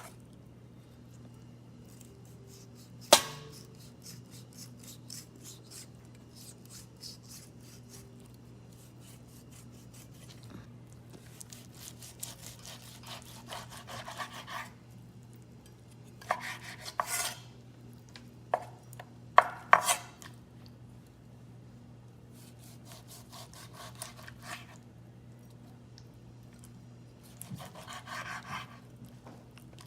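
Kitchen knife scraping and cutting on a cutting board in short, uneven strokes, trimming the rubbery skin off a boiled beef tongue. There is one sharp knock of the blade on the board about three seconds in and several more in quick succession past the middle.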